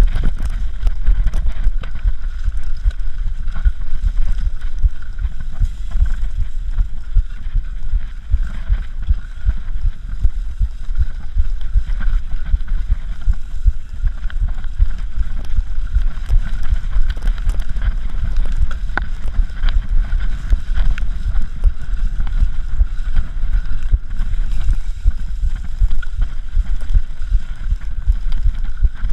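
Continuous loud low rumble of wind buffeting and jolts on an action camera's microphone while riding a cyclocross bike over bumpy grass.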